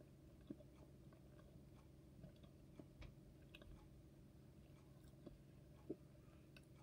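Faint chewing of a cherry Pop-Tart, heard as a few soft, scattered clicks over near silence.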